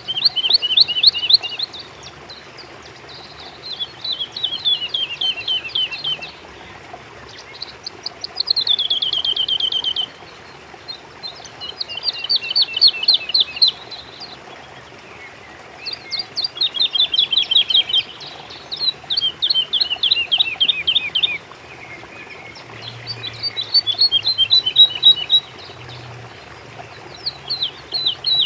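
A songbird singing the same rapid trilled phrase again and again: each phrase lasts about two seconds, its quick notes stepping down in pitch, with pauses of a couple of seconds between phrases.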